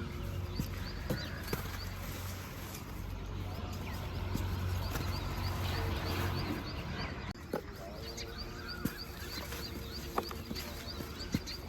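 Dry red dirt crumbling and dipping into water, heard as scattered short clicks and knocks, over intermittent animal calls in the background.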